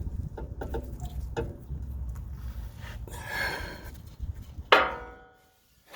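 Handling noise of shock absorber hardware being worked into its mount under a van: small knocks and a scrape, then one sharp metallic clank near the end that rings briefly and dies away.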